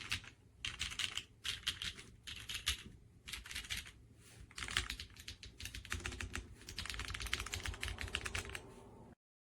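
Fast typing on a mechanical keyboard fitted with EPOMAKER Creamy Jade 45gf pre-lubed linear switches. Quick runs of keystrokes come in short bursts with brief pauses between them, then stop abruptly near the end.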